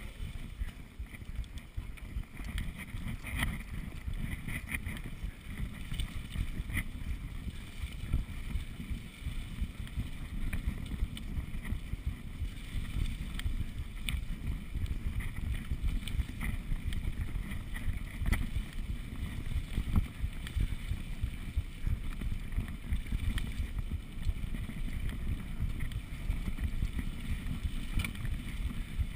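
Mountain bike riding fast down a dirt singletrack: wind rumbling on a GoPro's microphone over the bike's trail rattle, with scattered clicks and knocks from the bike over the ground.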